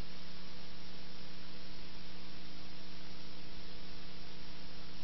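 Steady hiss with a low electrical hum underneath, the background noise of the recording itself, with no other sound.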